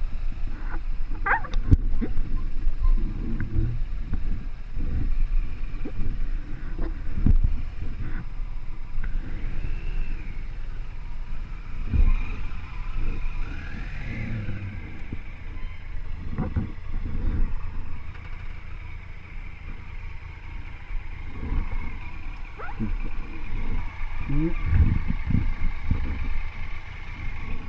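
Motorcycle engines idling and running at low speed, a steady low rumble with irregular buffeting from wind on the microphone.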